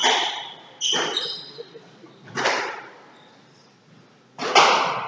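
Squash ball being struck and hitting the court walls, four sharp hits that ring briefly in the hall, the last the loudest. Sneakers squeak on the wooden court floor around the first two hits.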